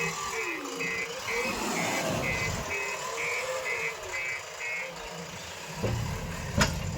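Reversing alarm of a JCB earth-moving machine beeping about twice a second over its running engine, stopping about five seconds in. A sharp knock sounds near the end.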